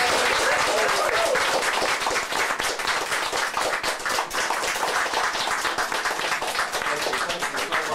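Audience applauding, loudest at the start and easing off slightly, with a few voices mixed in.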